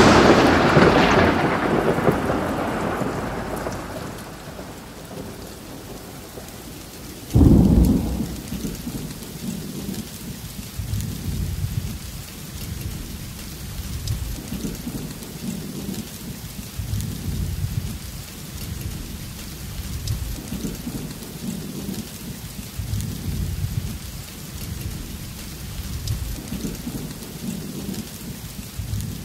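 Thunderstorm: a loud thunderclap at the start that rolls away over about four seconds, a second sudden crack about seven seconds in, then uneven low rumbling thunder over steady rain.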